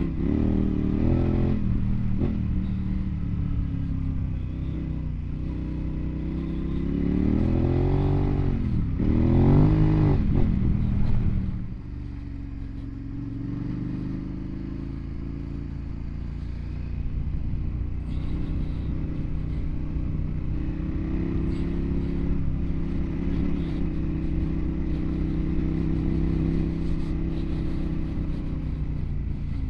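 Dual-sport motorcycle engine under way, revving up and down for the first twelve seconds or so, loudest around ten seconds in, then settling to a steadier drone as the bike cruises.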